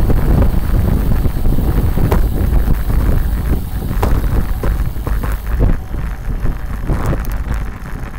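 Wind buffeting the microphone of a camera on a moving bicycle: a heavy low rumble with scattered rattles and knocks. The wind eases somewhat about six seconds in.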